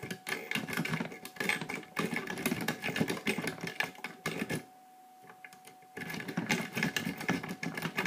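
Sparrow worm rake scraping rapidly in and out of a Security Solutions 5-pin tumbler cylinder: a fast metallic rattle of the rake over the spring-loaded pins. It stops for about a second and a half past the middle, then starts again.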